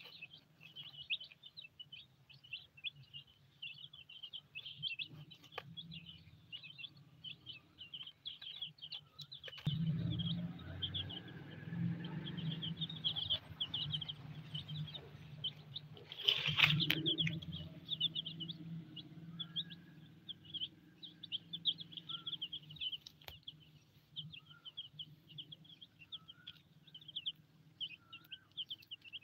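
A brood of silkie chicks peeping: rapid, high, overlapping cheeps that never stop. A low background rumble swells about ten seconds in and fades again after about eight seconds.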